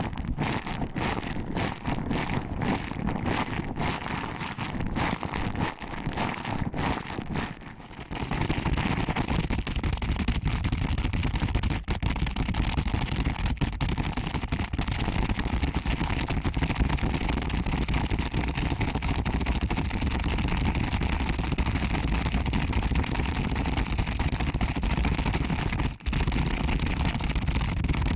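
Close-up ASMR ear-pinching and rubbing sounds on the microphone: quick crackly strokes at first, then, about eight seconds in, a continuous dense rubbing with a heavy low rumble that briefly drops out near the end.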